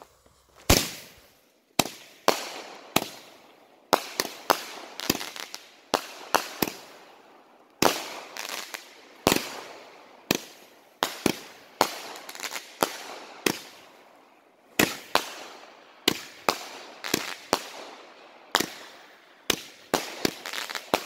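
A 25-shot 200-gram 'Lion' consumer firework cake firing: a long string of sharp shots and bursts at irregular intervals, some in quick clusters, each fading off briefly. The first shot comes about a second in.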